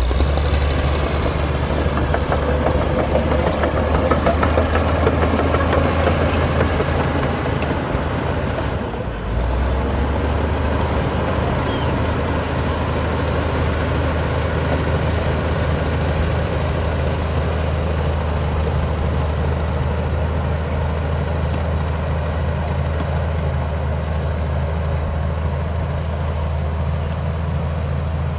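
Komatsu D60P bulldozer's diesel engine running steadily with a deep, even drone. It is busier in the first nine seconds, dips briefly, then runs steadier.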